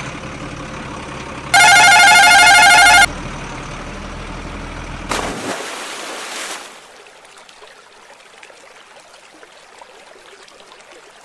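Truck engine running steadily, with a loud warbling horn blast lasting about a second and a half near the start. The engine cuts off about five seconds in as the toy tipper truck hits the water with a splash, followed by faint lapping water.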